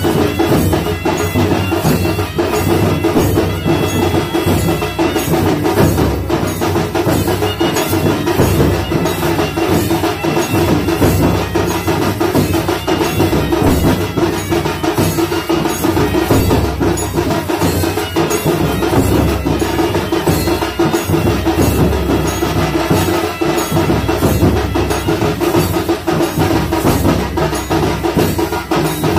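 Dhol-tasha drumming keeping a fast, steady beat, with the metal jingles of lezim clashing in time.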